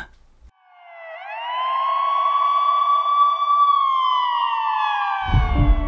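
A siren sounding one long tone: it rises over about a second, holds steady, then slowly falls away. Music comes in near the end.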